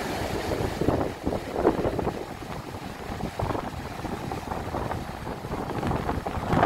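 Wind buffeting the microphone in uneven gusts over the wash of surf breaking on a beach, the gusts peaking about a second or two in and again near the end.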